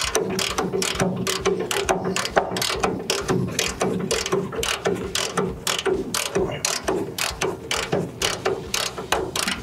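Hand socket ratchet clicking in quick, uneven strokes as a nut on a car's front suspension is worked loose.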